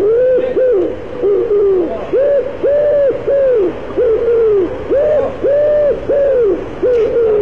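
Loud, deep pigeon cooing from a giant pigeon: a run of about fifteen rising-and-falling coos, mostly in groups of two or three.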